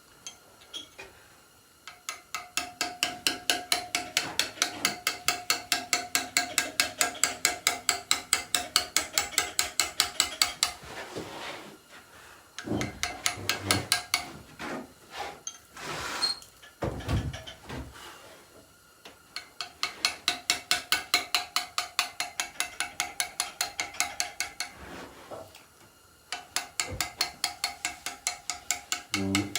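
Stone carving chisel struck with a mallet in quick, even taps of about five a second, each tap with a metallic ring, in three long runs, with a few heavier separate knocks in a pause between the first two runs.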